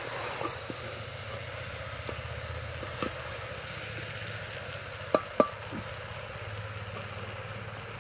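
Steel ladle stirring curry in a metal pressure-cooker pot over a wood fire, with a few light clicks and two sharp metallic taps on the pot about five seconds in, over a steady low background rumble.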